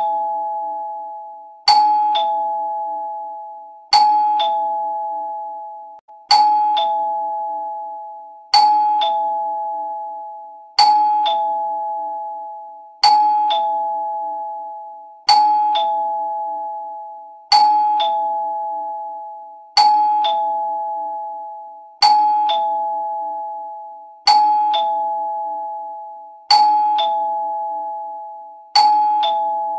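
Two-tone doorbell chime, a higher 'ding' followed by a lower 'dong', repeating evenly about every two and a quarter seconds. Each note rings on and fades before the next press.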